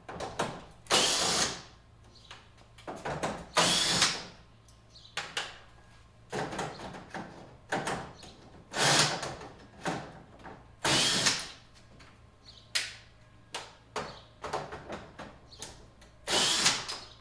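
Cordless power driver with a 10 mm socket spinning out the grille's top bolts in about five short runs of a second or so, with small clicks and knocks of handling between them.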